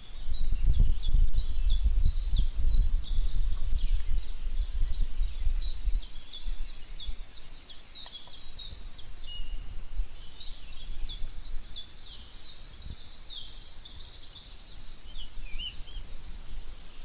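Birds chirping in quick runs of short notes over a low rumble. The rumble is loudest for the first six seconds, then eases.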